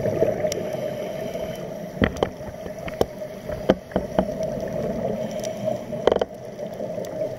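Muffled underwater noise heard through a camera's underwater housing during a scuba dive: a steady hum with several sharp knocks as the housing is handled against the diver's gear, and a short rattle of bubbles about six seconds in.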